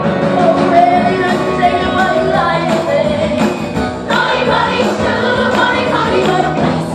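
Upbeat 1960s-style pop song with a steady beat and singing, filling a school hall during a stage dance number.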